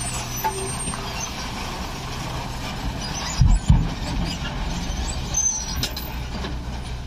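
Heavily loaded goods truck's diesel engine running at low revs as the truck creeps up a steel ramp onto a ferry pontoon. Two heavy thumps come about three and a half seconds in as the wheels go over the ramp.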